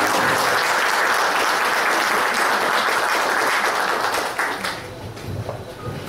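Audience applauding, a dense steady clapping that begins as the music stops and dies away after about four and a half seconds.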